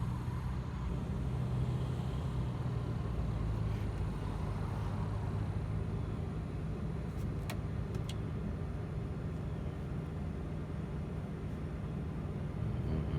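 Steady low rumble of an idling engine, with two short clicks about halfway through.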